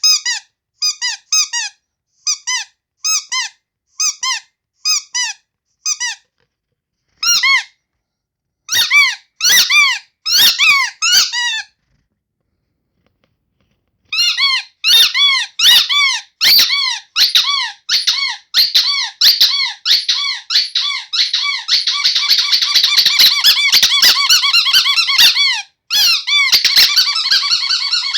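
Rubber squeaky toy squeezed over and over, each squeak a short tone that rises and falls. The squeaks come singly and in pairs, stop for about two seconds around the middle, then come fast enough to run almost together near the end.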